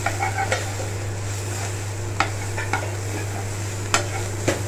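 Metal slotted spoon stirring chopped onions sautéing in oil in a nonstick kadai: a light sizzle with the spoon scraping and clicking against the pan about six times, over a steady low hum.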